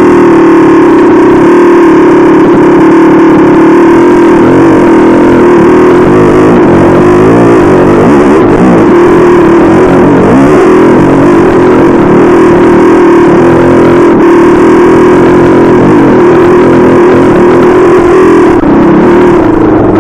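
A 440cc dirt bike's engine running loud and close to the mic while riding a trail, its note rising and falling with the throttle.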